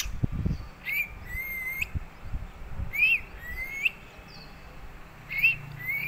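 Plum-headed parakeet giving three high whistled calls, each a short up-and-down note followed by a longer, level note that lifts at its end.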